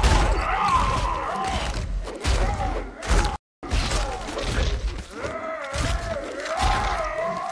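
Film fight soundtrack: a creature's deep grunts and groans over heavy thuds and crashing, shattering debris, with a brief dead-silent dropout about three and a half seconds in.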